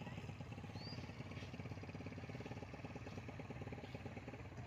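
A nearby engine running steadily with a fast, even pulse.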